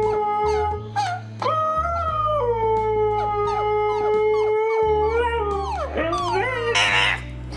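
Dog howling in long drawn-out notes: one howl trails off about a second in, then a second, longer howl holds one steady pitch for several seconds before dropping away. A short rising-and-falling cry follows, and a brief rough burst comes near the end.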